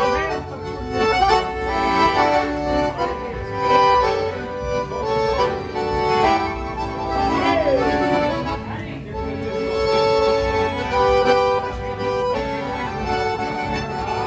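Accordions playing an instrumental passage of gaúcho music, held chords under a moving melody.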